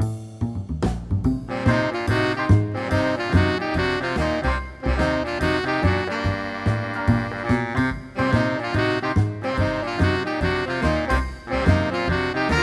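Background jazz music with saxophone and brass over a drum kit.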